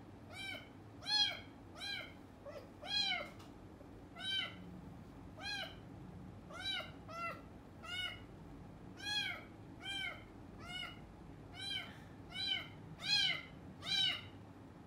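A colour-point kitten meowing over and over, short calls that each rise and fall in pitch, about one or two a second: the crying of a kitten unsettled on its first day in a new home.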